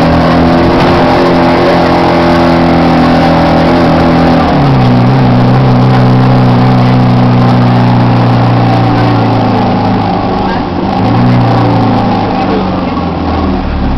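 Heuliez GX 427 articulated city bus under way, its diesel engine running with a steady droning tone that climbs, drops sharply about four and a half seconds in as the gear changes, then climbs again. The engine is making an abnormal noise that the operator puts down to a problem between the air-conditioning compressor and the engine.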